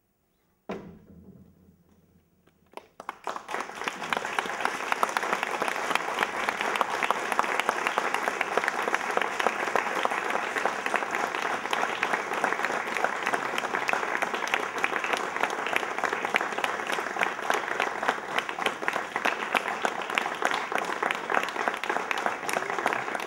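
A single sharp sound rings briefly and dies away, then a crowd breaks into applause about three seconds in and keeps clapping steadily.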